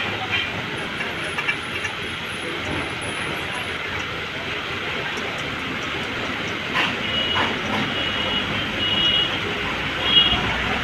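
Steady street traffic noise, with short high beeps repeated several times in the second half, like a vehicle horn. A few sharp metallic clicks of hand tools on the motor's nuts.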